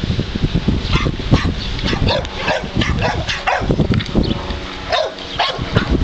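Bulldog making a string of short, irregular vocal sounds, with wind rumbling on the microphone.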